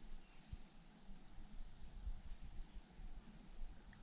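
Steady, high-pitched insect chorus of crickets or similar insects, droning without a break.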